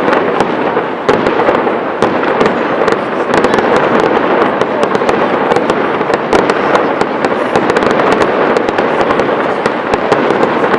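Fireworks going off continuously: a dense crackle of many sharp pops over a steady rumble of bursts, with no pause.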